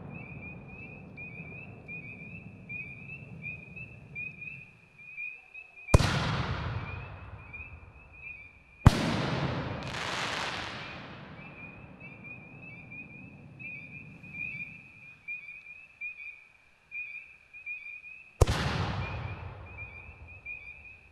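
5-inch canister shells fired from a reloadable mortar tube. A sharp launch bang comes about six seconds in, and the shell bursts about three seconds later with a boom and a spread of crackling, each bang echoing away. Another launch bang comes near the end. A steady, pulsing high chirp runs beneath.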